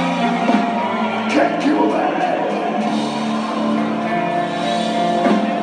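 Background rock music with singing.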